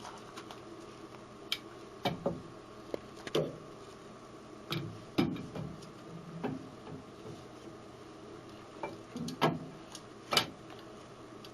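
Plastic lathe steady rest with bearings being handled and set in place around the workpiece: irregular light clicks and knocks of plastic and metal parts, about ten in all, with a faint steady hum underneath.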